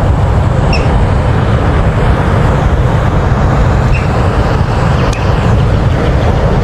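Loud, steady rushing roar of water pouring through a spillway that is flowing hard.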